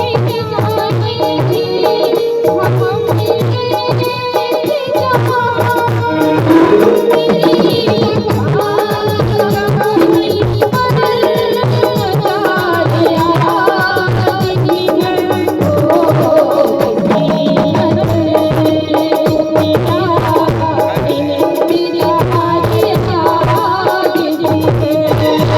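Ghazal music: tabla keeping a steady rhythm under a melody line.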